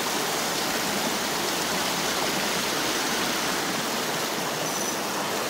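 Small rocky stream, running higher than usual after rain, flowing over stones in a steady, even rush of water.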